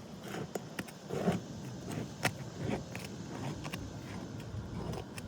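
Asphalt roof shingles being pried loose from their sealant strip: scattered clicks, crackles and short scrapes, with one sharp click a little over two seconds in.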